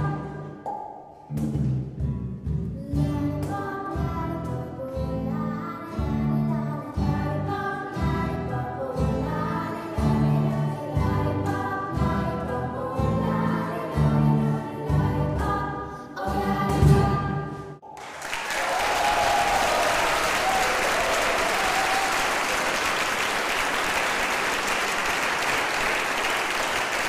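A girl soloist sings with a choir over a band of strummed acoustic guitars in a steady rhythm. The song ends abruptly about eighteen seconds in, and applause follows.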